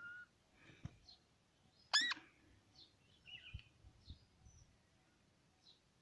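Parakeet giving one sharp, rising screech about two seconds in, with faint short chirps scattered around it and a few soft knocks.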